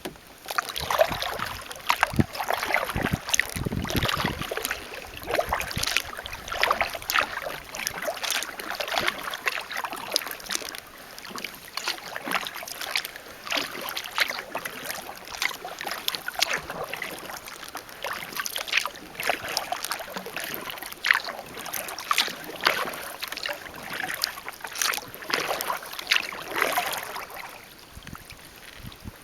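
Kayak paddle strokes: the blades dipping and pulling through the water in a steady rhythm of splashes, stopping near the end.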